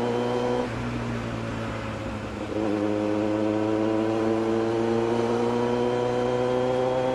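Kawasaki Z900 inline-four engine and exhaust heard from the saddle while riding at city speed. The engine note eases off about a second in. It comes back stronger at about two and a half seconds and climbs slowly in pitch as the bike accelerates.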